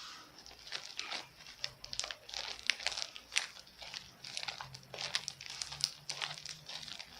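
Slime being kneaded and squeezed by hand with a little toothpaste mixed in, giving a string of irregular sticky clicks and crackles.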